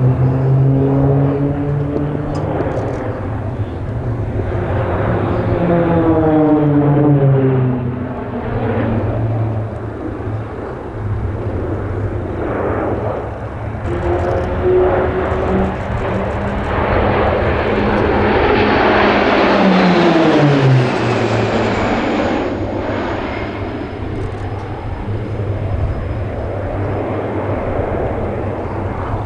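A formation of turboprop aerobatic aircraft flying past, their engines droning steadily. The engine note falls in pitch as they go by, twice: about six seconds in and again near twenty seconds.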